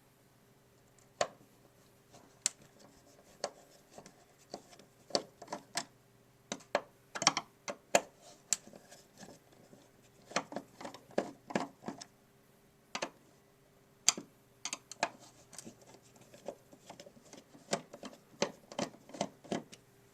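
Irregular small clicks and taps of a hand screwdriver and plastic parts as screws are backed out of the keyboard's plastic chassis and set down.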